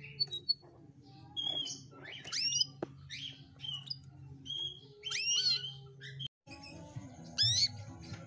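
Canary calls: separate short chirps and steep rising, sweeping notes, coming in clusters several times, over a low steady hum. The sound drops out briefly about six seconds in.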